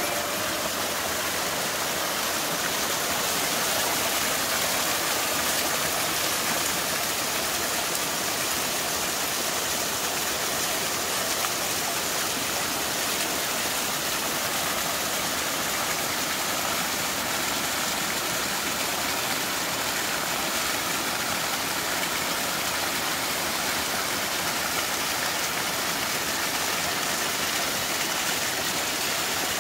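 A mountain stream running over rocks in small cascades: a steady rush of falling, splashing water.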